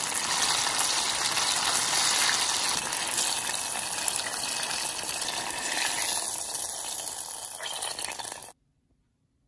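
Battered banana chunks deep-frying in hot oil, a steady loud sizzle that cuts off suddenly about eight and a half seconds in.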